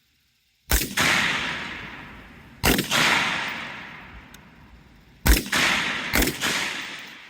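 C7A2 5.56 mm service rifles firing single shots on an open range: four shots, unevenly spaced, each followed by a long rolling echo that fades over about two seconds.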